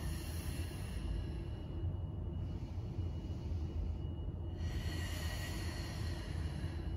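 A woman breathing deeply while exercising, three long breaths one after another, over a steady low hum.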